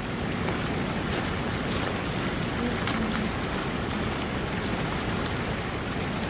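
Steady rush of a large waterfall plunging into its pool, a continuous even roar of falling water and spray.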